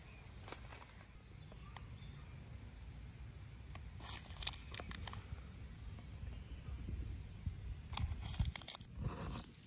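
Scattered crunching and rustling clicks over a steady low rumble, with small clusters of louder crackles about four seconds in and again near the end.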